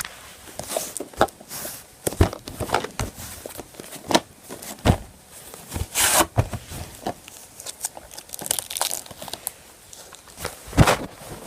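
Plastic shrink-wrap being torn and crinkled off a DVD box set, in irregular crackles and tears with a few sharper, louder rips.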